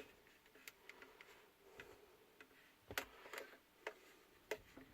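Near silence with faint, irregular clicks, several a second apart: no audio at all comes from the car head unit, which is the no-sound fault being shown.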